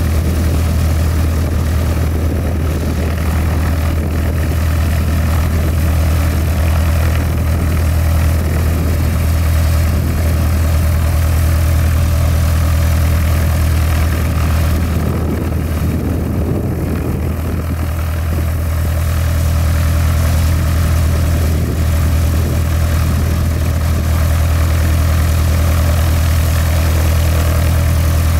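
Cessna 172 Skyhawk II's four-cylinder Lycoming engine and propeller idling steadily, heard close by, with a strong low hum that stays even throughout.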